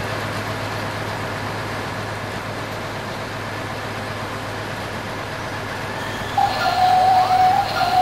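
Steady engine-like rumble from a toy remote-control excavator. About six seconds in, as the arm works, it grows louder and a steady high whine joins in with a few short rising chirps.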